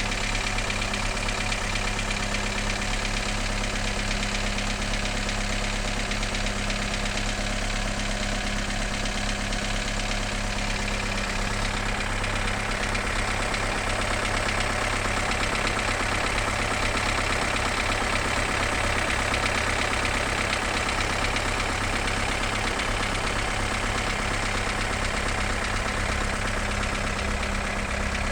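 Fiat 1.0 Evo engine idling steadily, recorded to show an engine noise that concerns the owner.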